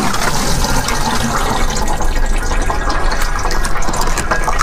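Dense, continuous crackling and hissing from a ball of ice as its rubber balloon mould is peeled away.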